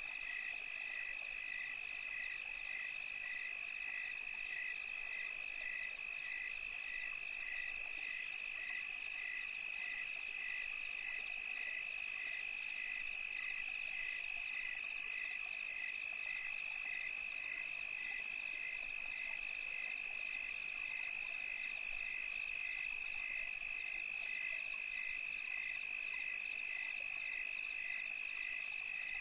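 Night chorus of insects and frogs: a steady high trill with a regular chirping call about twice a second beneath it.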